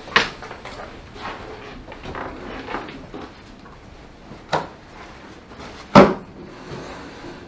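Knocks and shuffles of classroom furniture and a bag as someone moves to a desk and sits: a sharp knock just as it begins, another about four and a half seconds in, and the loudest about six seconds in, with rustling in between.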